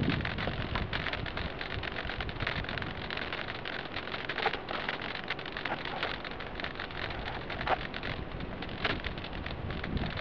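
Steady crackling hiss with many small scattered clicks, picked up by the FPV plane's onboard camera microphone while the plane is being handled; no motor is running.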